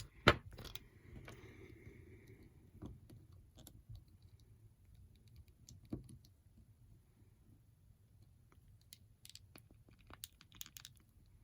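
Small plastic clicks and taps from action figures being handled. A sharp click comes just after the start, lighter clicks are scattered through the middle, and a quick cluster of clicks comes near the end.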